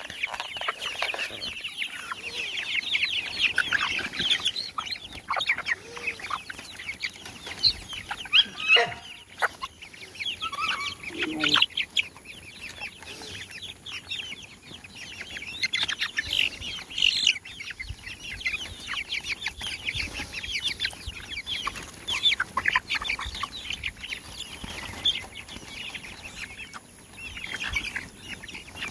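A crowded flock of chickens clucking without pause while they jostle and peck at fruit held against the wire, with a dense stream of quick pecking taps under the calls.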